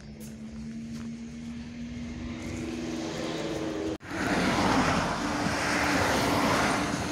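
A box truck driving past close by on a road, its engine and tyre noise coming in suddenly about four seconds in and staying loud, easing off slightly near the end. Before it, a steady low hum that slowly grows louder.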